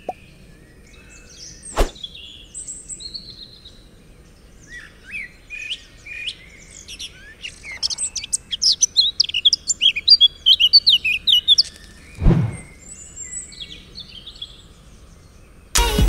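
Forest ambience of many small birds chirping and twittering, busiest over the middle stretch, with a sharp click about two seconds in and a dull thump about three-quarters of the way through. Music starts abruptly just before the end.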